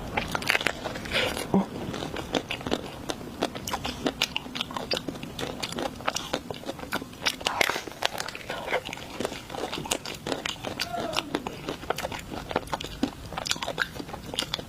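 Close-miked mouth-eating of desserts: crunchy bites and chewing, a dense irregular run of crisp crackles and crunches.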